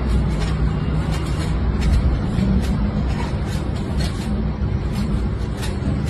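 Heavy machinery running with a loud, steady low hum, with frequent faint ticks over it.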